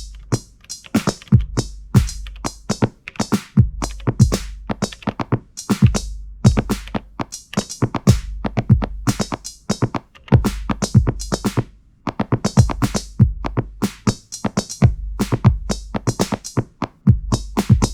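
Elektron Digitakt drum machine playing a looping polyrhythmic beat: rapid percussive sample hits over a deep bass note that comes back about every two seconds.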